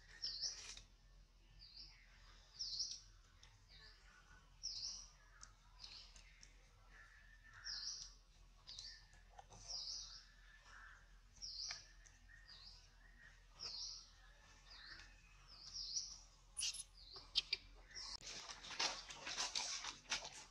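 A small bird chirping over and over: short, high chirps about once a second. There is a louder burst of noise near the end.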